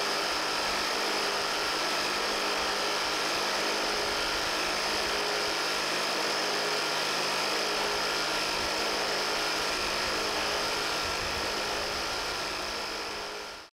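Steady whine of an electric motor running like a drill, with a hiss over it, holding an even speed and fading out near the end.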